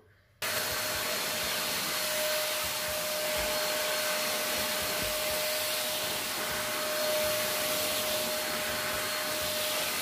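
Vacuum cleaner running steadily, with a steady whine over the rushing air of its suction, its long narrow nozzle drawn over a fabric sofa cushion. It starts suddenly about half a second in.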